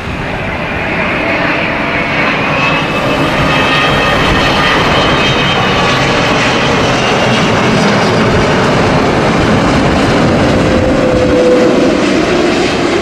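Twin-engine widebody jet airliner on final approach to landing: its jet engines run as a loud, steady rushing noise that grows louder over the first couple of seconds and then holds, with a faint high whine in it.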